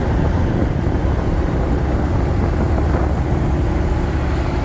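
Steady, loud low rumble of a vehicle on the move, with no breaks or distinct events.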